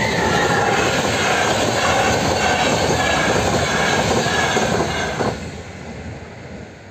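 Electric passenger train passing at speed over a level crossing: a loud rush of wheels on rail with high ringing tones. It cuts off sharply about five seconds in as the last coach clears, leaving a fading rumble.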